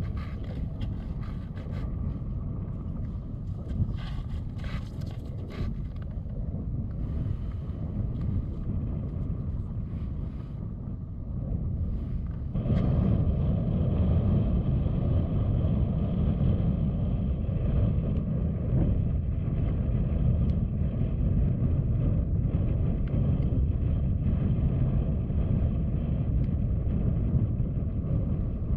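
Wind rumbling on the microphone, growing stronger about halfway through, with a few light clicks and taps in the first several seconds.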